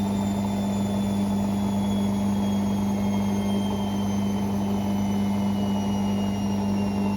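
Hoover Sportswear 1300 washing machine in its fast spin, a steady low hum and drum rumble with a thin high motor whine that slowly drops in pitch.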